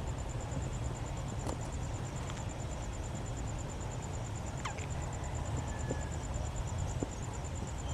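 Outdoor ambience: a steady, fast-pulsing high insect trill over a low rumble of wind on the microphone. A few brief sharp notes break in, one a quick falling note about halfway through.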